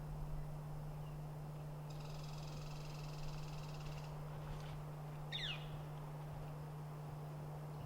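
Small birds calling: a high buzzy trill lasting about two seconds, then a quick downward-sliding chirp about five seconds in, over a steady low hum.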